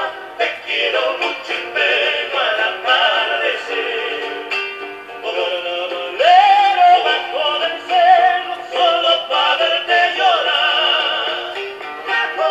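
Background music with a sung vocal melody, thin-sounding with no bass.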